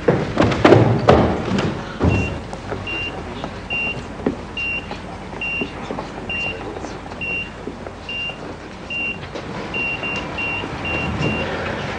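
Footsteps hurrying up a staircase, then the repeated high beep of a heart monitor, about one beep a second, with a few quicker beeps near the end.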